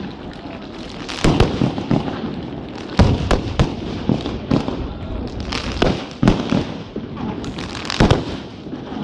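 Aerial firework shells bursting one after another: a series of sharp bangs, each with a rolling echo, with a steady rumble and crackle between them.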